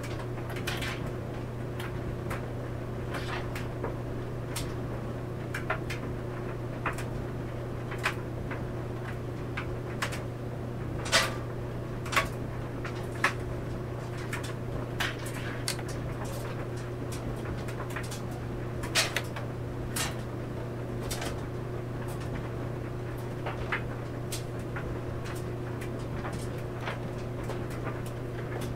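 Clothes dryer running with a steady hum while laundry tumbles in the drum, giving irregular knocks and clicks, a few of them louder.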